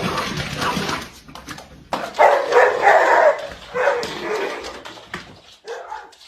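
A dog barking, loudest in a quick run of barks about two seconds in, with a few weaker ones after.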